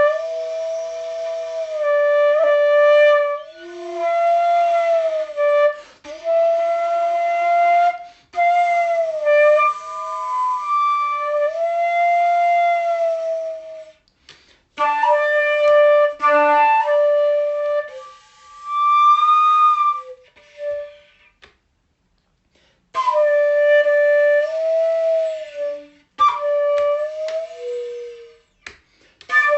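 Solo wind-instrument music, flute-like: slow, held single notes that bend and slide in pitch, played in phrases with short breaks and one pause of about two seconds near the two-thirds mark.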